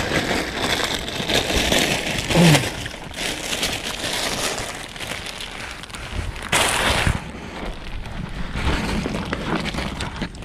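Clear plastic bag crinkling and rustling in irregular bursts as a caught fish is handled into it. A short falling voice sound comes about two and a half seconds in.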